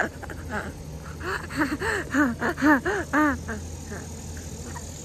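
A young child giggling: a quick run of short, bouncing laugh syllables that starts about a second in and lasts a couple of seconds.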